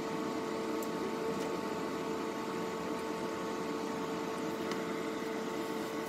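Steady mechanical hum with a faint fixed tone, like a fan or appliance running, with a few faint ticks from the wire being handled and twisted with pliers.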